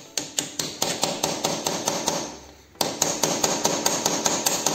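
Rapid light metal-on-metal taps, about six a second, as a flat-blade screwdriver is tapped into the edge of a leaking oil seal in a motorcycle's crankcase cover to drive it out. The tapping fades and pauses briefly about two seconds in, then starts again harder near three seconds.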